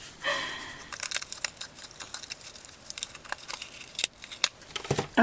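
Fingers handling a cardboard pen gift box: scraping and rustling with scattered small clicks as a ballpoint pen is worked out of its box insert.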